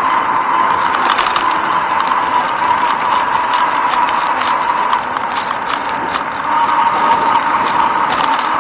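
Bicycle ride heard from a bike-mounted camera: steady noise from the tyres and wind with a constant hum, and scattered small clicks and rattles from the bike and mount.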